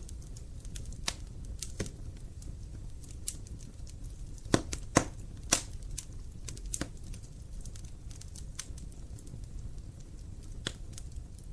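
Wood fire burning in a fireplace: a steady low rumble of flames with irregular sharp crackles and pops from the logs, the loudest few coming close together about halfway through.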